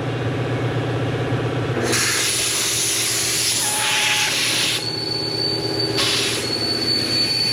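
Compressed air hissing into a tractor tire as it is inflated to seat its bead, starting about two seconds in, with a thin high whistle joining near the middle. Air is still escaping past the unseated bead, over a steady hum of running machinery.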